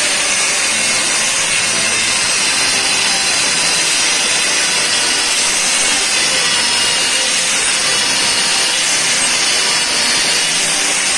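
Angle grinder with an abrasive cut-off disc cutting through 2-inch round iron, a steady, loud grinding noise that holds unchanged throughout.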